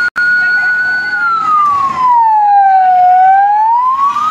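Fire truck siren wailing loudly: one high steady tone that slowly falls in pitch and then rises back again. It cuts out for an instant just at the start.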